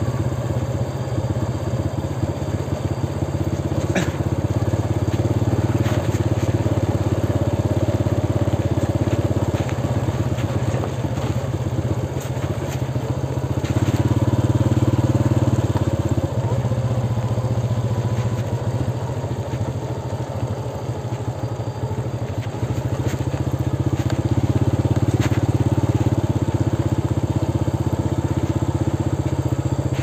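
Motor scooter engine running while it is ridden along a rough country road, its note swelling and easing as the throttle is worked. A sharp knock about four seconds in, with a few lighter clicks and rattles.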